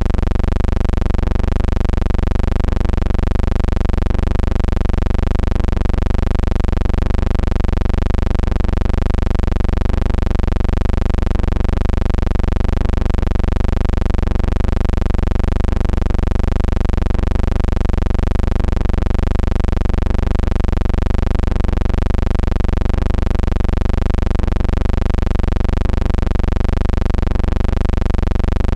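A steady, loud low hum, pulsing slightly and regularly a little faster than once a second, with no voices or crowd sound.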